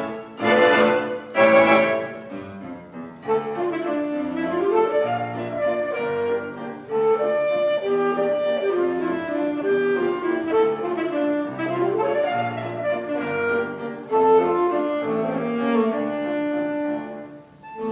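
Saxophone and piano playing a waltz: two loud chords open it, then the saxophone carries a melody with rising slides over the piano's accompaniment.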